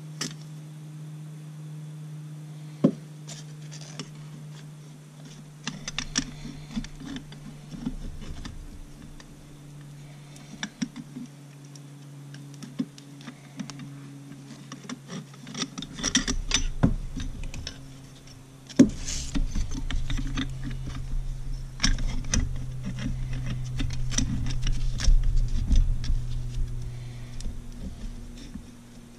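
Small metal clicks, clinks and taps of a piston, piston ring compressor and connecting rod being handled while pistons are fitted into the cylinders of a two-stroke outboard powerhead, over a steady low hum. Two sharper knocks stand out, about three seconds in and near the middle, and the handling grows louder and busier in the second half.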